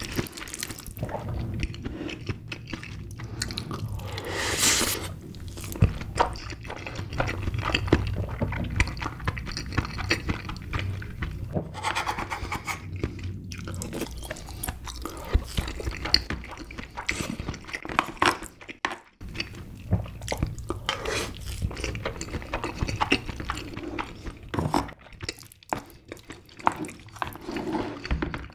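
Close-miked wet eating sounds: a wooden spoon scraping and scooping meat from a king crab's shell, with moist chewing and lip smacks. These come as a dense run of small, irregular clicks and squelches.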